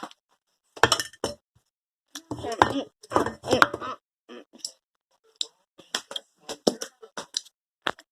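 Scattered clinks and knocks of slime-making containers and utensils being handled, with a short stretch of indistinct voice about two to three seconds in.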